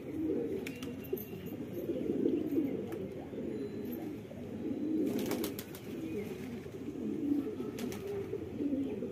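A flock of domestic pigeons cooing, many low coos overlapping without a break. A couple of brief sharp knocks come in around halfway and near the end.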